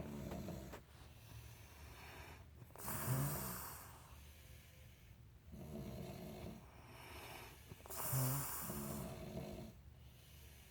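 Sleepers snoring in a slow, regular rhythm: a harsh, rattling snore about every five seconds, alternating with a lower, droning, more tonal snoring breath in between.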